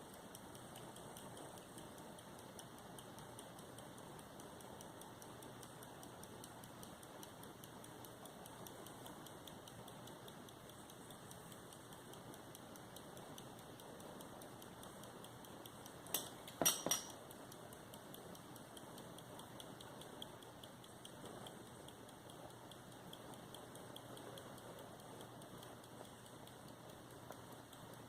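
Antique English verge fusee pocket watch ticking faintly and steadily, its verge escapement beating. Partway through, a few sharp, louder clicks cut in briefly.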